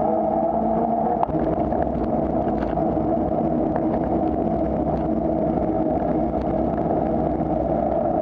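Steady rush of wind and road noise on the microphone of a camera riding on a moving bicycle, with a few faint clicks.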